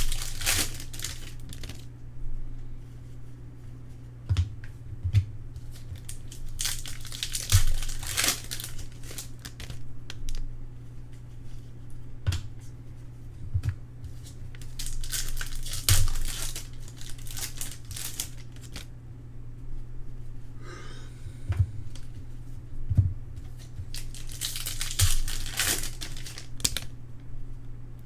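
Trading-card pack wrappers crinkling and tearing open, in about four bursts, with quieter handling of cards between them. A steady low hum runs underneath.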